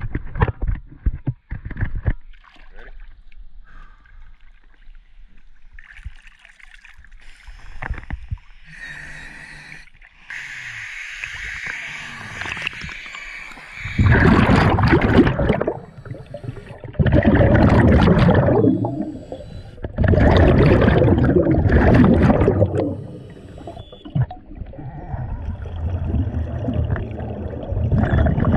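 Scuba diver breathing through a regulator underwater: a thin hiss of inhaling, then several loud rushes of exhaled bubbles, each two to three seconds long with short gaps between them. There are a few clicks and knocks near the start.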